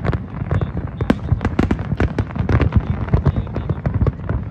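Large aerial fireworks display going off in a dense barrage: many sharp bangs and crackles in quick succession, several a second, with no break.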